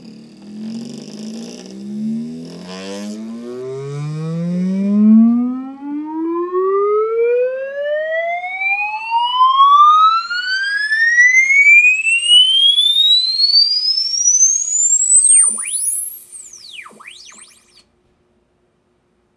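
Test tones from a cassette played through the Pioneer CK-3 boombox's speakers. A few seconds of short stepped tones are followed by a single tone sweeping smoothly upward from deep bass to a very high whistle over about thirteen seconds, then the tone cuts off.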